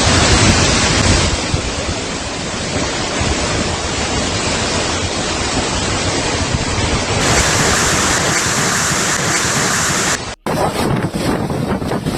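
Strong wind buffeting the microphone, a dense rushing noise with no let-up. It shifts in character about seven seconds in and cuts out for an instant near ten seconds, where the footage is cut.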